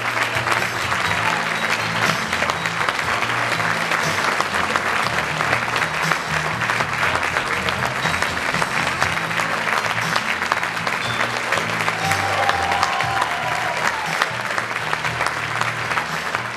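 Audience applauding steadily over music with a bass line that steps from note to note.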